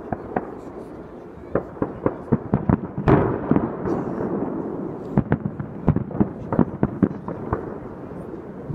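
Aerial fireworks shells bursting in quick succession: a string of sharp bangs, several a second, with one heavier bang and a longer rumble about three seconds in.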